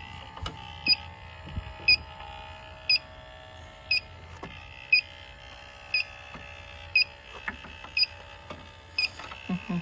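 Electronic refrigerant leak detector beeping about once a second at an even, slow rate while it is swept over an evaporator coil. The steady slow beeping is the detector's baseline search rate: no refrigerant is being picked up.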